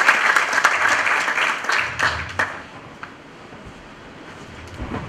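Audience applause, dying away about two and a half seconds in with a few last claps.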